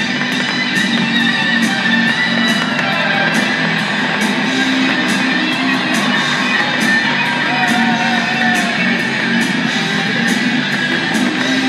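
Loud rock music with strummed guitar and a steady drum beat, played over speakers.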